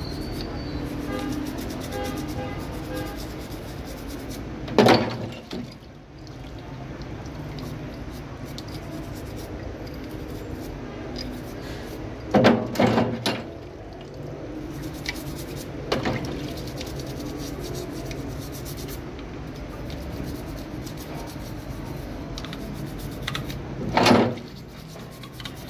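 Brush scrubbing small steel pistol parts in a tub of soapy water, with water dripping and splashing. Sharp knocks of metal against the plastic tub or sink come about five seconds in, twice around twelve to thirteen seconds, once near sixteen seconds and loudly near the end.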